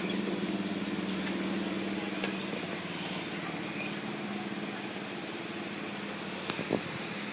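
An engine running with a steady hum that slowly fades, over a noisy background, with two sharp clicks about six and a half seconds in.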